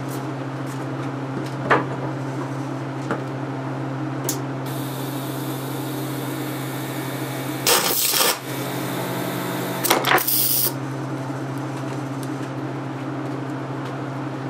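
AC arc welder humming steadily as it drives current through a nickel-metal-hydride AA rechargeable cell. About four and a half seconds in the cell starts to hiss, then it crackles loudly twice, around eight and ten seconds in, as the overloaded cell sparks and fails.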